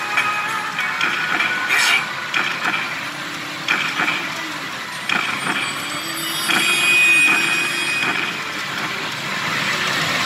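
Pachinko parlour din: a steady wash of machine noise and electronic tones, with a few sharper clacks at irregular moments.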